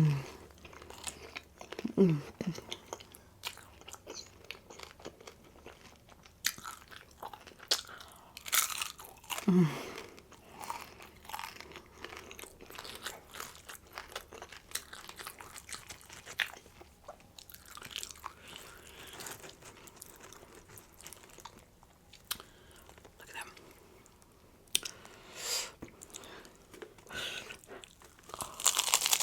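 Close-up eating sounds: crisp fried rolled tacos (taquitos) being bitten into with loud crunches, then chewed, in irregular bursts with quieter chewing between.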